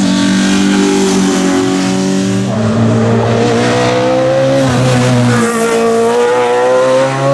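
Race car engine running hard under full throttle. Its pitch climbs slowly, then jumps suddenly at the start and again about two and a half and five and a half seconds in as it shifts gear.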